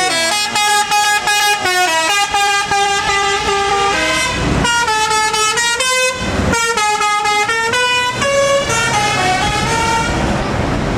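A tour bus's telolet basuri musical air horn playing a melody of held notes that step up and down in pitch. Twice, around four and six seconds in, a short low rumble of bus engine breaks through between notes, and the horn fades into engine and road noise near the end.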